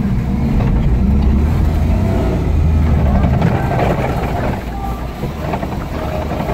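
Car engine labouring at low speed on a rough, sandy dirt track, heard inside the cabin, with the body and interior jolting and rattling over the ruts. The low engine drone eases about two-thirds of the way through.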